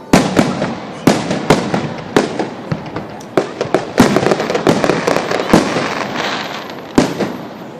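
Fireworks finale: a rapid barrage of aerial shell bursts, dozens of sharp bangs over a steady crackle. The last big bang comes about a second before the end, then the crackle fades.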